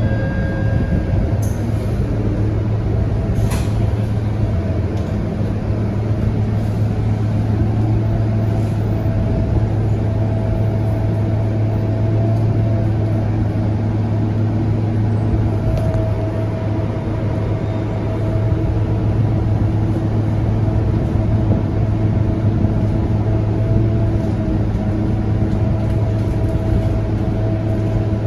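Inside a Scania K230UB single-deck city bus on the move: its rear-mounted five-cylinder diesel engine running steadily with a deep hum, over road and tyre noise. A faint whine comes and goes on top.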